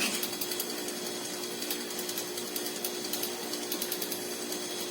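An air-conditioner compressor rigged as a DIY air compressor, running steadily and pumping air into a tank. It gives a steady hum with a fast, light mechanical rattle.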